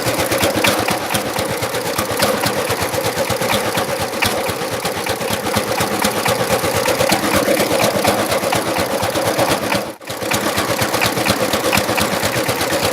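A small engine running flat out, firing in a fast, even rattle. It breaks off briefly near the end and then carries on.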